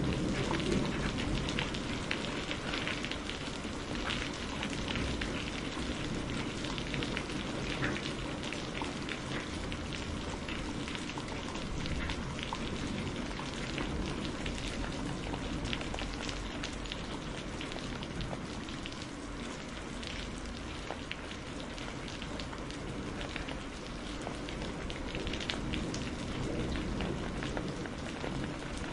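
Steady rain falling, with many separate drop impacts heard close by over the continuous wash. No thunder stands out.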